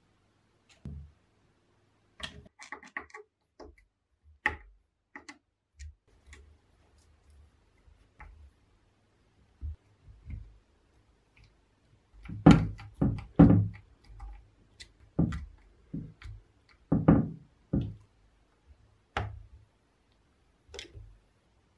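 Screwdriver and metal parts clicking and knocking as the wiring and cable clamp are fitted into a jack hammer's cast handle. Scattered small clicks, with three louder knocks about halfway through and two more a few seconds later.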